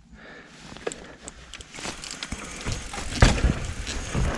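Mountain bike rolling down a dirt trail, tyres running over the ground with wind buffeting the microphone. It grows louder as the bike gathers speed, with scattered clicks and knocks and a heavy thump about three seconds in.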